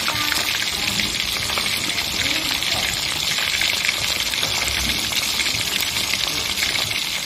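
Two whole fish frying in hot oil in a wok: a steady sizzle with fine crackling and spitting.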